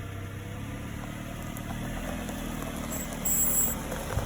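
2006 Honda CR-V rolling slowly in drive with its engine running, and a brief high-pitched squeal from the right rear about three seconds in: the odd noise the owner suspects may involve the brake lines.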